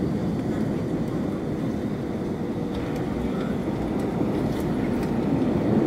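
Cabin noise of an Airbus A321 skimming the runway just before touchdown, flaps extended: a steady low rush of engines and airflow, heard from inside the cabin, getting a little louder near the end.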